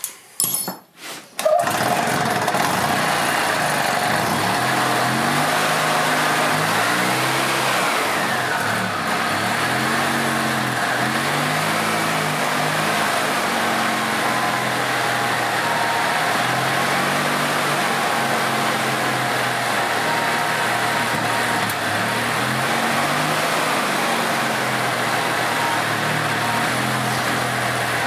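A few clicks, then the 2006 EZGO TXT golf cart's single-cylinder four-stroke gas engine catches about a second and a half in and keeps running steadily, its speed drifting gently up and down. It is running again after a new fuel filter and the clearing of water from the fuel.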